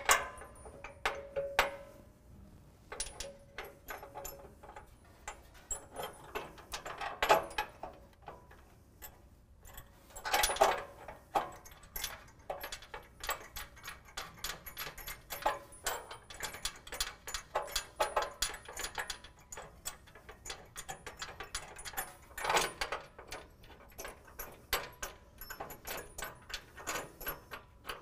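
Steel bolts, flat and lock washers and nuts clinking and rattling as they are handled and threaded on by hand, irregular small metallic clicks with a few louder clatters.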